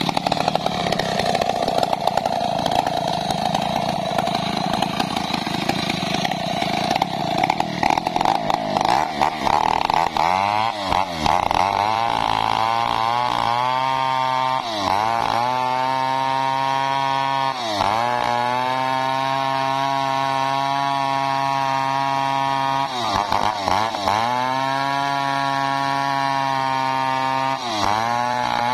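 Two-stroke chainsaw ripping lengthwise through a dry waru (sea hibiscus) log with a blunt chain. The note is rough and uneven for the first ten seconds or so, then settles into a steady high-revving whine that sags and recovers several times as the bar bogs in the cut.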